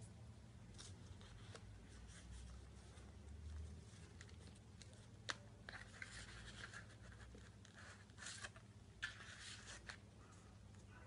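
Faint rustling and light clicks of cardstock pages and flaps in a handmade scrapbook album being turned and handled, with a sharp click about five seconds in and more rustling after it. A low steady hum runs underneath.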